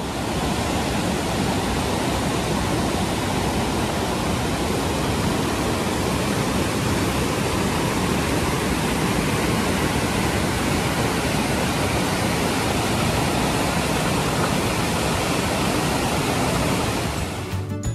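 Steady, loud rush of a waterfall, which fades out near the end.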